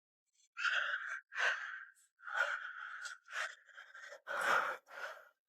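A person's breathy sighs and gasps, in a string of about seven short, airy breaths.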